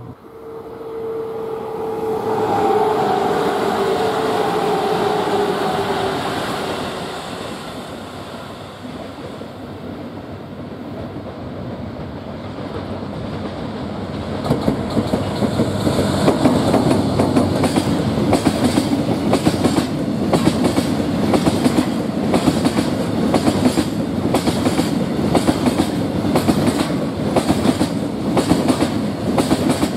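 A JR Freight DF200 diesel locomotive approaching, with a steady tone that slides slowly down in pitch over the first several seconds. From about halfway its train of tank wagons rolls past, the wheels clicking rapidly and evenly over the rail joints.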